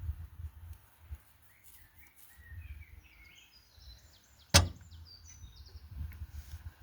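Faint, high bird chirps, a scatter of short notes through the middle, and a single sharp click or knock about four and a half seconds in, the loudest sound. A low rumble comes and goes underneath.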